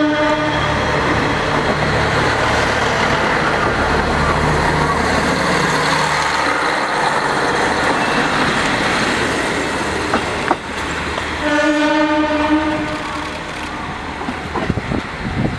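Train running past close by a station platform, with a steady engine rumble and rolling wheel noise. A horn sounds one held note for about a second and a half, about eleven and a half seconds in.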